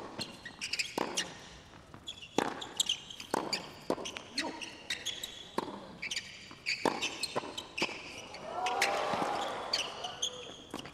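A tennis doubles rally on a hard court: sharp racket strikes and ball bounces about once a second, with short high squeaks of tennis shoes on the court surface. A brief swell of crowd noise rises about eight seconds in.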